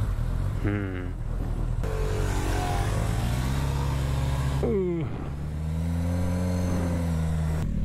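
Suzuki GSX-S1000F's inline-four engine running as the motorcycle pulls away at low speed. Its pitch rises and falls with the throttle, dropping sharply about five seconds in, then climbing again and easing off.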